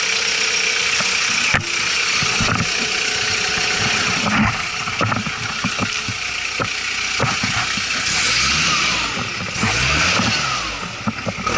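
Ford Ranger's WL-T turbodiesel engine running, with a steady hiss and scattered clicks and knocks, then revved up and down in about three quick blips over the last few seconds.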